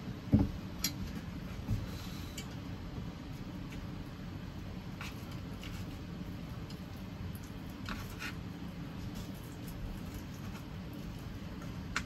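Quiet eating at a table: a dull knock on the wooden tabletop about half a second in, then a few light clicks of wooden chopsticks against a food tin. A steady low hum runs underneath.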